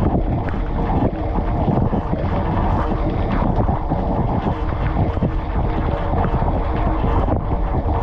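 Dishwasher wash cycle heard from inside the tub: water jets from the spray arms splashing steadily over the wire rack and plate.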